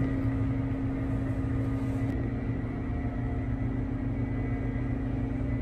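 Steady low hum of a cruise ship's machinery, with a faint high whine above it.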